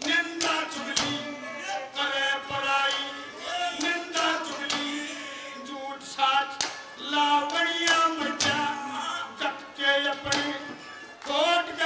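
Man singing a Haryanvi folk song into a microphone over instrumental accompaniment, the long sung phrases broken by sharp percussive strokes.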